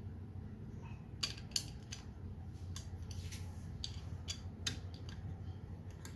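Irregular clicks and creaks of a small screw being driven by hand into a plastic rack, with the plastic parts creaking under the screwdriver, over a steady low hum.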